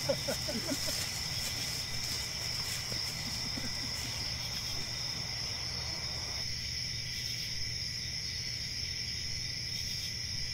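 Crickets chirring steadily in a continuous night chorus over a low hum, with faint voices trailing off in the first second.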